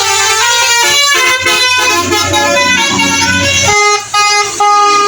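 Telolet 'basuri' musical bus air horn playing a tune of quickly stepping notes, over a low rumble that stops about three-quarters of the way through.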